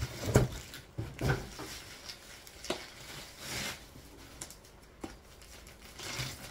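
A cardboard box and its packing being handled by hand: scattered clicks and knocks, with a brief rustle about three and a half seconds in.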